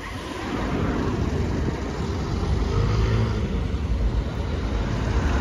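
Double-decker bus pulling away, its engine rising in pitch and growing louder as it gathers speed, over street traffic noise.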